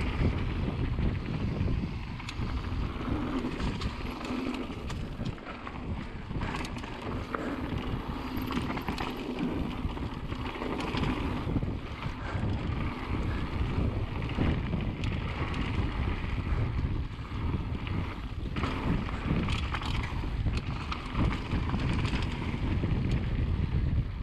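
Mountain bike riding down a dirt forest singletrack: a steady rush of wind over the microphone with tyre noise on dirt, and frequent rattles and knocks from the bike over bumps.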